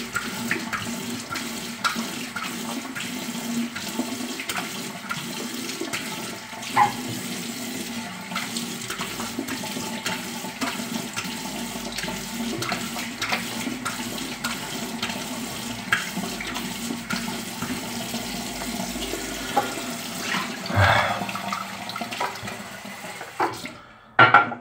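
Tap water running steadily into a bathroom sink, with irregular splashes as hands scoop warm water onto the face; the running water cuts off just before the end.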